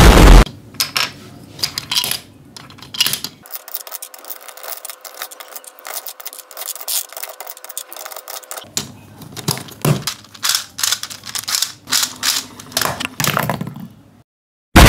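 Plastic cube pieces of a Rubik's Cage clicking and clacking against each other and the plastic cage frame as they are dropped and fitted in, many quick uneven clicks. It opens with the last half second of a loud explosion sound effect.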